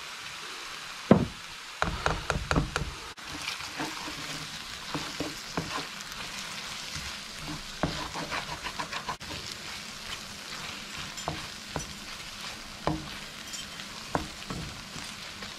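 Mushrooms, onions and a flour roux sizzling in a frying pan while a wooden spoon stirs them, scraping and knocking against the pan bottom to lift the browned bits. There is a sharp knock about a second in.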